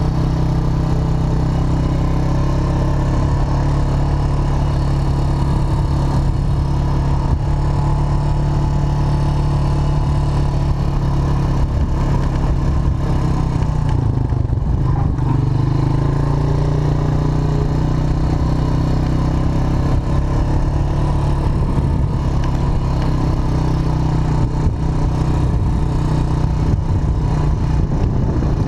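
Quad bike (four-wheeler) engine running steadily as it drives along the sand; the engine note dips and picks up again about halfway through.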